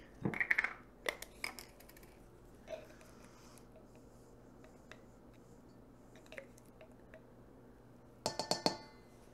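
Small kitchen items being handled: a few clicks as a spice jar is opened, a long quiet stretch, then a quick run of clinks against a stainless steel mixing bowl near the end that ring briefly.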